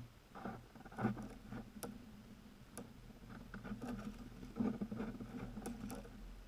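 Deer right at a GoPro set in the snow: irregular soft bumps, scuffs and clicks of a deer nosing at the camera and stepping close by in snow, loudest about a second in and again just before five seconds in.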